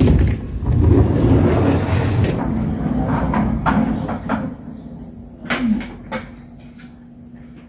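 Electric mobility scooter being driven from the street into a house: a low rolling rumble for the first two seconds or so, then a series of knocks and rattles over a faint steady hum as it bumps through the doorway and comes to rest.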